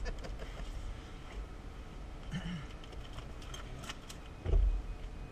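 Scattered small clicks inside a parked light aircraft's cockpit over a low rumble, with a dull low thump about four and a half seconds in.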